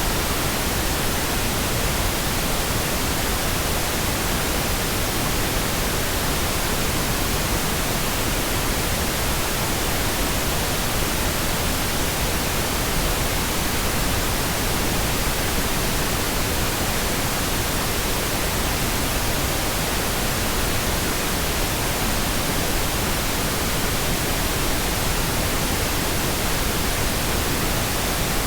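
Steady, unbroken pink noise: an even hiss with no changes.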